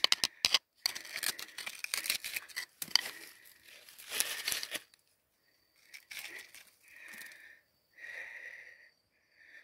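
A steel screwdriver scraping and prying at crumbly quartz-crystal rock and kaolin, with rapid scrapes, clicks and grit crumbling away for about five seconds. After that come a few softer, separate sounds about once a second.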